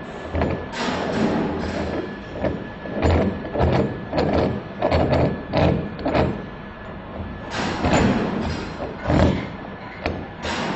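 Irregular metal knocks and clicks as a swivel hoist ring is screwed down onto a mould with a hex wrench, about two or three clinks a second.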